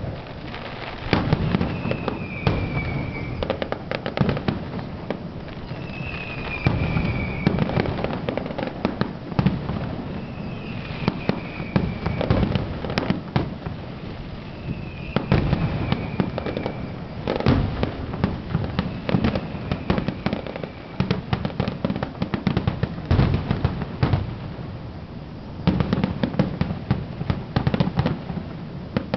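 Fireworks display: aerial shells bursting in an irregular barrage of bangs and crackles, with dense clusters of reports at several points. A short falling whistle sounds about five times, roughly every four to five seconds.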